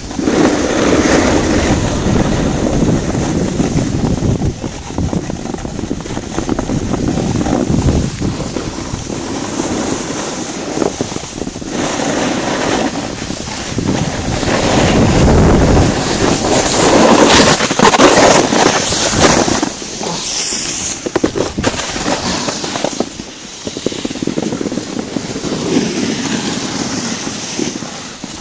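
Wind buffeting the microphone of a camera moving down a ski slope, mixed with the rush and scrape of sliding over snow. The noise is loud and uneven, swelling and easing, and drops off somewhat about twenty-three seconds in.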